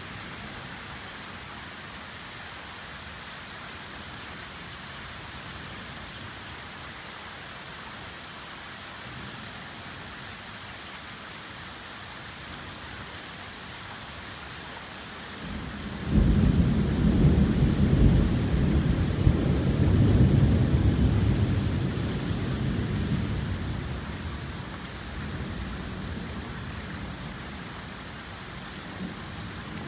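Heavy rain pouring steadily in a thunderstorm. About halfway through, a long roll of thunder comes in, loudest for several seconds before rumbling away slowly under the rain.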